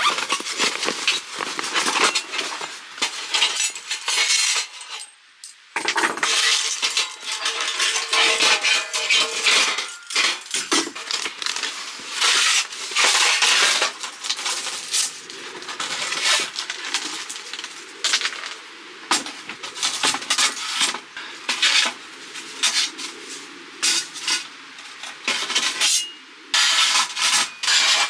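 Thin titanium panels of a Pomoly T-Brick 2.0 folding wood stove clinking, rattling and scraping against each other as the flat-packed stove is handled and unfolded into its box shape. There is a short lull about five seconds in.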